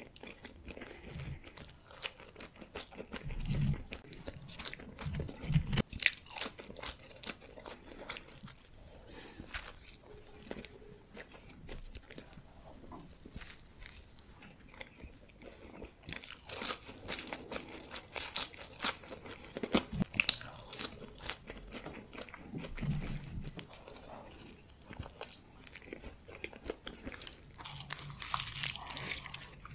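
Close-miked eating: bites into a burger and fries with wet chewing, mouth clicks and crunches coming in clusters. Near the end comes a louder, crunchier bite into a breaded fried ball.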